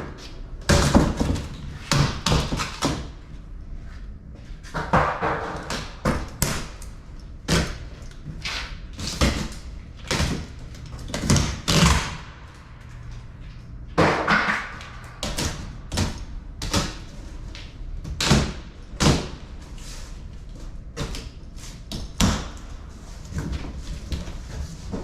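Large cardboard shipping box being opened and handled: irregular knocks and thumps of cardboard, with a couple of longer rasping passages of cardboard or packing being pulled, about five and fourteen seconds in.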